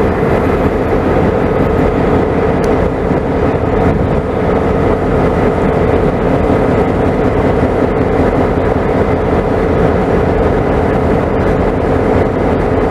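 EMD GP40-2 diesel locomotive engine running steadily close by, a constant drone with a steady high tone over it, as the locomotive rolls slowly.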